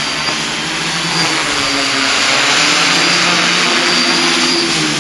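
Quadcopter's electric motors and propellers buzzing loudly in flight, with a high whine over the top. The propeller pitch wavers up and down as the throttle shifts to hold it in the air.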